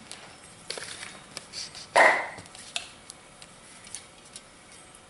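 One short, loud bark-like call about two seconds in, dropping a little in pitch as it fades, amid a few light clicks and rustles of handling.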